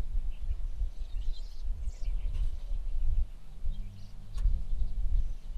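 Wind buffeting the microphone in an uneven low rumble, with faint bird chirps.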